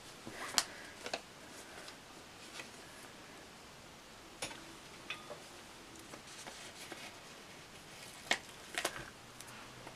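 A few scattered soft clicks and paper crinkles from a sticker sheet being handled, over quiet room tone.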